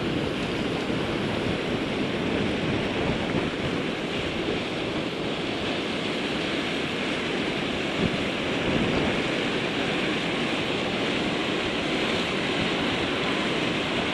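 Water pouring over a concrete spillway and churning in the pool below: a steady rush with no breaks, with some wind on the microphone.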